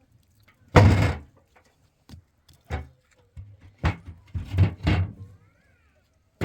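A loud bang about a second in, followed by a series of shorter knocks and thuds, clustered near the end, with a door-like slam character.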